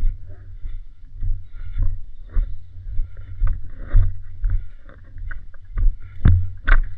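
Heavy rumble of movement and wind on a body-worn camera, with irregular knocks and clicks from footsteps and gear; two sharp cracks, the loudest, come about half a second apart near the end.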